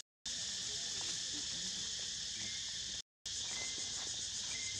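Dense insect chorus of forest crickets or cicadas, a steady high-pitched hiss-like drone that cuts out briefly right at the start and again about three seconds in.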